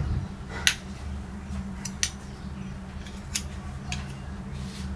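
Light clinks and clicks of kitchen utensils, about six separate sharp ticks spread over a few seconds as dough is scooped with a teaspoon and rolled into balls, over a steady low hum.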